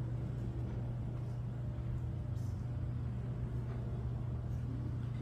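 A steady low background hum, with a few faint soft knocks.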